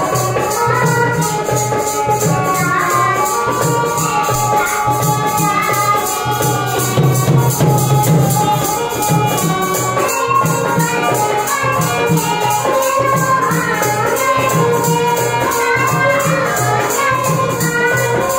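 Indian instrumental music: an Indian banjo plays a bending melody over a dholak beat, with a fast, even shaken-percussion rhythm keeping time.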